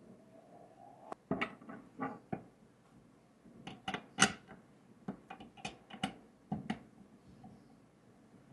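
Irregular clicks and clinks of small hard objects being handled: about a dozen sharp knocks spread over several seconds, the loudest about four seconds in.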